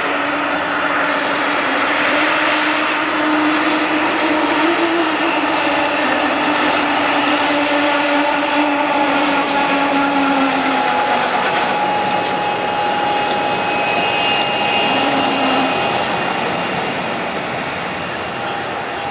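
Embraer ERJ-145 regional jet's two rear-mounted Rolls-Royce AE 3007 turbofans running as it rolls along the runway: a steady jet whine over a broad rush, its tones gliding slightly, easing a little near the end as the engines turn away.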